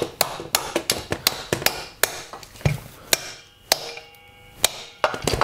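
Hammer striking a steel punch set in the spark plug hole of a small lawnmower engine, driving a piston that is seized in the cylinder down and out. A quick run of sharp metal-on-metal blows, several a second, spacing out after about three seconds. One blow leaves the metal ringing briefly.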